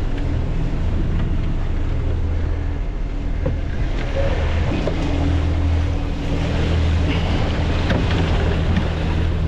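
Water rushing past the hull of a sailboat under way offshore, with wind on the microphone and a steady low hum underneath. A few small knocks of gear being handled come through.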